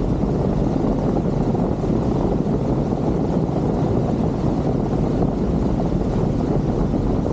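Motorboat running underway: a steady, even low rumble of engine, water and wind.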